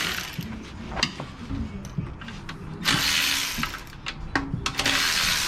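Socket ratchet working bolts loose in short bursts of rapid clicking, with a few single metal clicks between, while removing the oil pan bolts.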